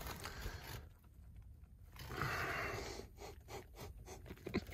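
Faint rustling and scraping as a person moves through a cramped attic, brushing past foil-wrapped flexible ducts, with a few light knocks and clicks near the end.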